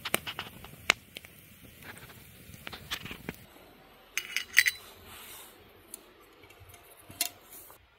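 Wood campfire crackling with sharp pops and snaps, then, about four seconds in, a clatter of a metal camp pot and lid being handled, and one more metal clink near the end.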